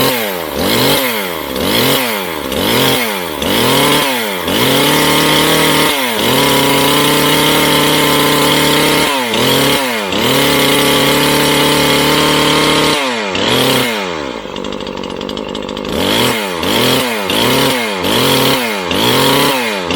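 Neotec NH843 43cc two-stroke chainsaw engine running just after starting, the throttle blipped over and over so the revs sweep up and fall back about twice a second. Twice it holds steady at high revs for a few seconds, and it drops to a quieter idle a little past the middle before the blipping starts again.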